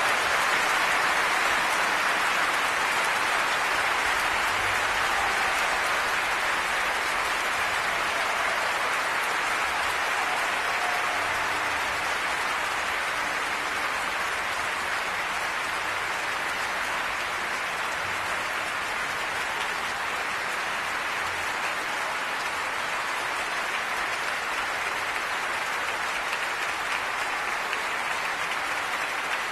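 Concert audience applauding: dense, steady clapping that eases a little over the first half.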